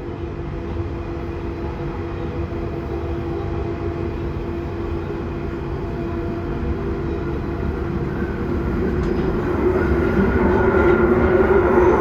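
London Underground Central line train running: a steady rumble with a humming tone, growing louder over the last few seconds as a higher whine builds in.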